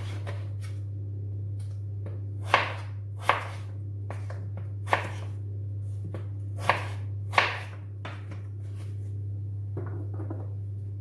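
Kitchen knife cutting vegetables on a cutting board: irregular sharp knocks of the blade striking the board, several seconds apart at first and then fainter, over a steady low hum.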